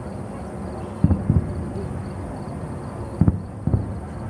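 Distant aerial firework shells bursting: four dull booms in two quick pairs, about a second in and again past three seconds, over a low steady background rumble.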